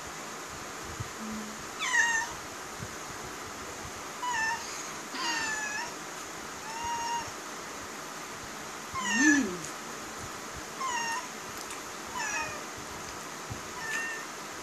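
A domestic cat meowing about eight times, short high meows one to two seconds apart, each dipping slightly in pitch; the loudest comes about nine seconds in. It is begging for food at the table.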